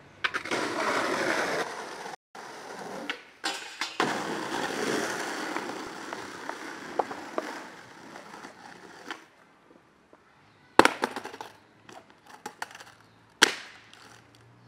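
Skateboard wheels rolling over rough concrete, then sharp wooden clacks of the board against the ground: two loud ones about eleven and thirteen and a half seconds in, with lighter clicks between.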